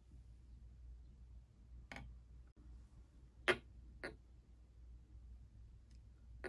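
Glass gas-filled tubes clicking against the glass globe of a plasma lamp: a few sharp, irregular ticks, the loudest about three and a half seconds in, over a faint low hum.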